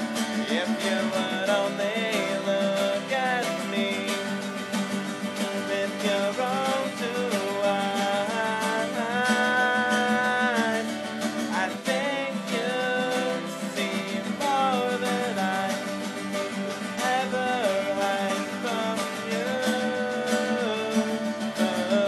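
Acoustic guitar strumming steadily under a sung melody that glides between notes and holds several long notes.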